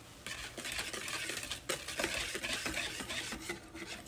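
Wire whisk beating flour into wet cake batter in a mixing bowl: a fast, continuous scraping and swishing with light clicks of the wires against the bowl, starting a moment in.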